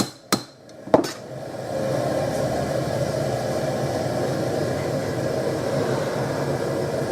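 A few sharp knocks in the first second, then a gas forge burner running with a steady rushing noise.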